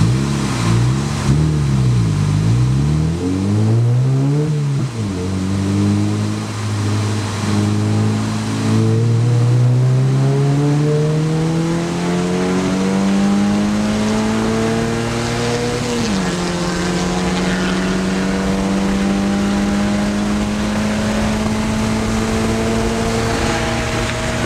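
Mazda MX-5 race car's four-cylinder engine heard from inside the cockpit. The revs rise and fall several times in the first few seconds, then climb steadily for about ten seconds. They drop sharply at an upshift and then hold an almost steady pitch.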